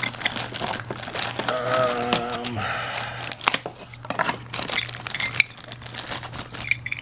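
Plastic and cardboard packaging crinkling and tearing as a deadbolt lock is unpacked, with scattered clicks and knocks of the lock parts and a short squeak about two seconds in.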